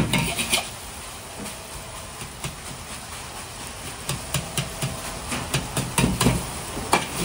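Egg fried rice sizzling with a steady hiss in a carbon-steel wok, with a clatter as a toss ends at the start. After that, a metal ladle clicks and scrapes against the wok as it spreads the rice, the clicks coming more often toward the end.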